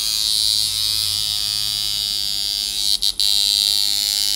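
Tattoo machine running steadily on its power supply with an electric buzz while its speed is set, cutting out twice briefly about three seconds in.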